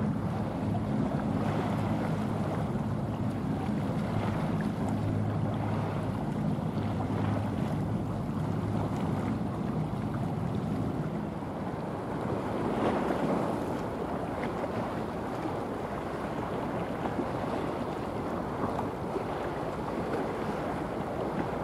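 Low, steady engine hum of a passing container ship that fades out about halfway through, over wind buffeting the microphone and waves washing.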